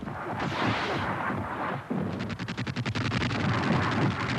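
Battle sound of artillery and gunfire: heavy firing, joined about two seconds in by a rapid, even run of sharp cracks like automatic fire.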